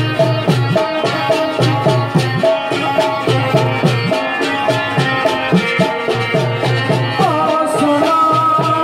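Live Pakistani folk instrumental music on harmonium and keyed banjo (benju), over a steady hand-drum beat. Near the end a higher held note slides in.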